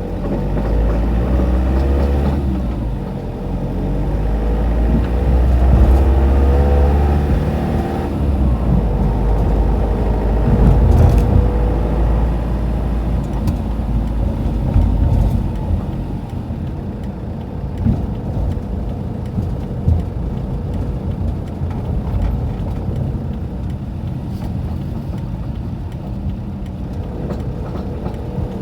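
Mk6 Ford Transit 2.0 diesel van on the move: engine and road rumble, with the engine rising in pitch over the first several seconds. Scattered sharp knocks come through the rumble, the loudest about twenty seconds in. This is the knocking from a front wheel that the owner is trying to diagnose, still there after new tie-rod ends were fitted.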